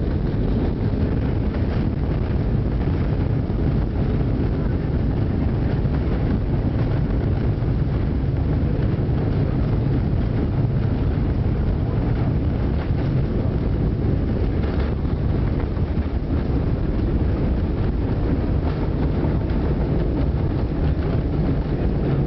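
Steady low rumble of an Airbus A320 heard from inside the cabin as it rolls along the runway after touchdown.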